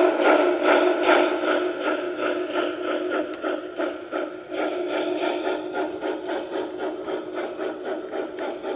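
Lionel model freight cars rolling past on the track, their wheels clicking over the rail joints about four times a second over a steady rolling hum that slowly fades.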